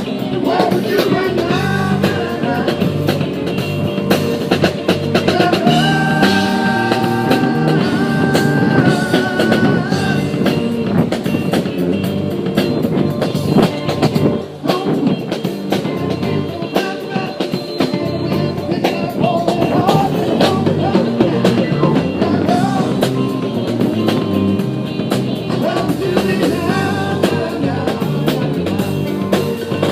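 Rock music with a drum kit, guitar and a singing voice.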